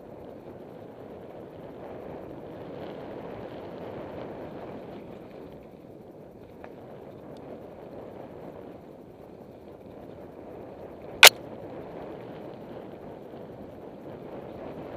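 Mountain bike rolling down a dirt singletrack: a steady rushing noise of tyres on dirt and wind over the microphone. One sharp, loud click stands out about three quarters of the way through.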